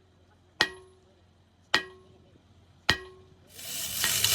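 Hammer striking steel: three ringing blows a little over a second apart. A loud rough rasping noise builds up near the end.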